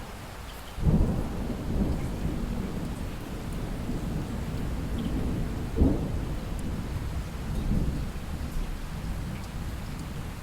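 Steady rain with a rolling rumble of thunder that breaks in sharply about a second in, cracks again about six seconds in, and slowly dies away.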